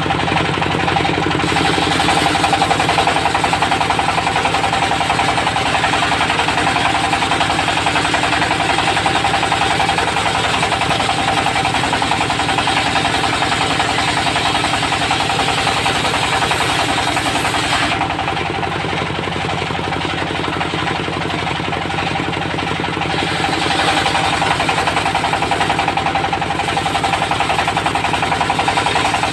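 Engine-driven circular saw mill running steadily under load, its engine pulsing rapidly beneath the whine and hiss of the blade sawing teak. The high hiss drops away for a few seconds past the middle, then returns.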